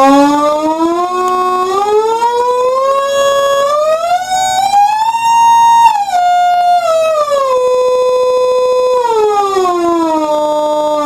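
An Atari Punk Console's buzzy rectangular-wave tone, its pitch rising in stepwise glides to about three times higher around the middle, then stepping back down to the low starting pitch as its knobs are turned.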